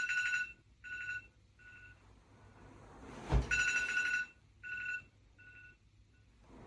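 Electronic phone ring, a two-tone trill sounding twice about three and a half seconds apart, each time a long ring followed by shorter, fainter repeats. A dull thump comes just before the second ring.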